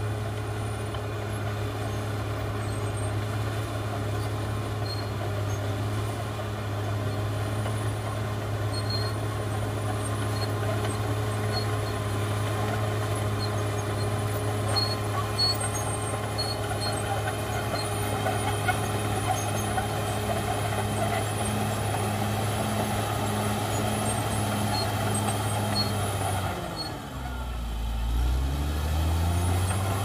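Cat D6R XL bulldozer's diesel engine running steadily under work. A few seconds before the end its engine speed drops sharply and then climbs back up.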